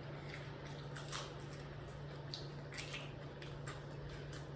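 Faint wet clicks and smacks of a person chewing food, a few short sharp ones scattered through, over a steady low hum.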